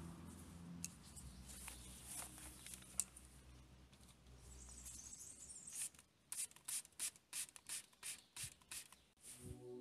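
Hand-held trigger spray bottle of tyre dressing squirting onto a rag in a quick run of short hissing bursts, about three a second, in the second half. Before that, soft rubbing of the cloth on the tyre with a few single squirts.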